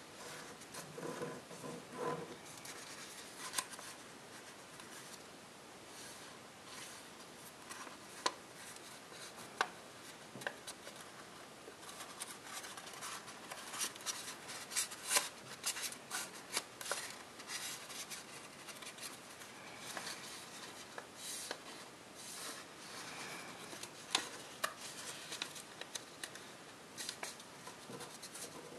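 Copper tissue foil being folded and creased by hand: irregular crisp crinkles, rubbing and sharp clicks of the foil, busiest around the middle.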